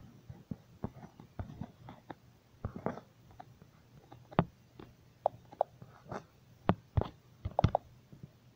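Irregular light taps and clicks at uneven spacing, with a few brief high blips among them; the loudest come in the second half.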